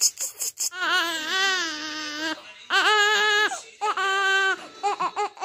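Newborn baby crying: one long wavering wail, then two shorter cries and a few brief sobs near the end. A quick run of clicks comes just before the first wail.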